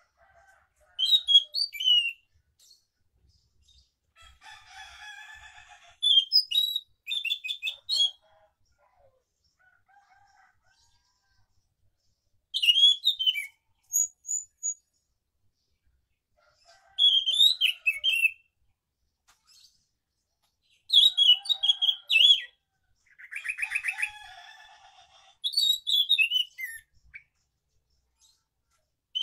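Caged anis macan thrush singing its rolling song in short, high whistled phrases, about six of them a few seconds apart. Softer, lower chattering passages come twice, near 5 s and 24 s.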